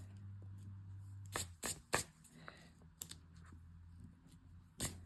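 Small scissors or thread snips trimming embroidery thread tails: a handful of short, sharp snips spread out over a few seconds.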